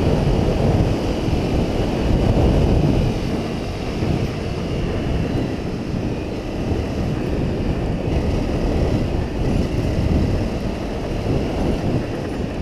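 Honda CRF250 Rally single-cylinder motorcycle being ridden along a sandy track, its engine and tyres under heavy wind buffeting on the bike-mounted camera's microphone. The rushing rises and falls a little but never breaks.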